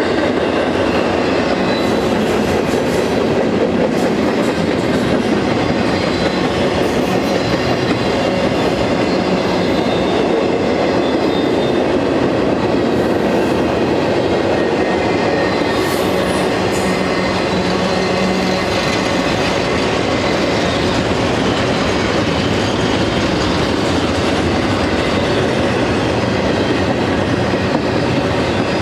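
BNSF double-stack intermodal train's well cars rolling past close by: a steady, loud rumble and clatter of steel wheels on the rails.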